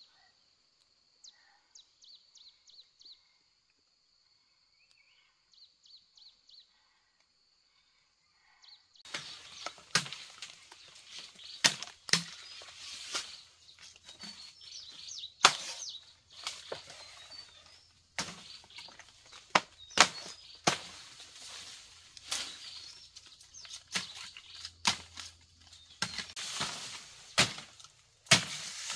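Dry bamboo litter and stalks crackling and snapping as someone pushes through a bamboo thicket, with sharp cracks every second or so over a rustle of leaves. Before this, for the first third, there is only a faint, steady high chirping.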